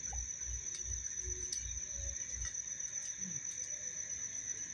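Night crickets trilling in one steady, unbroken high-pitched tone, with a few faint clicks and some soft low thumps in the first couple of seconds.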